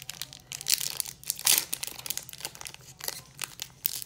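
Foil wrapper of a Pokémon trading-card booster pack crinkling in the hands as it is opened: a run of irregular sharp crackles, loudest around the middle.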